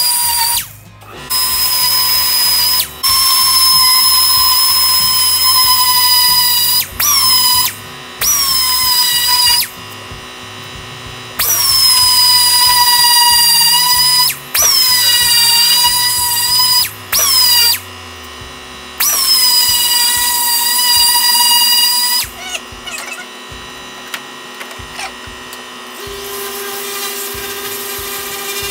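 Mini angle spot sander with a small yellow pad, sanding scratches out of car body paint: a high whine in repeated bursts of one to four seconds, the pitch dipping each time the pad is pressed on and then settling. Near the end a random orbital sander takes over with a lower steady hum.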